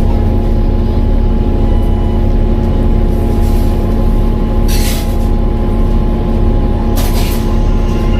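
Volvo B7TL double-decker bus running with a steady low engine drone and a steady whine held over it. Two short hisses come about four and a half seconds in and again about seven seconds in.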